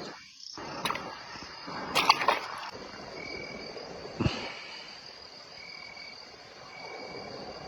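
Night insects, crickets among them, trilling steadily with shorter trills repeating over the faint wash of the stream. A few brief knocks or splashes come about two seconds in and again just after four seconds.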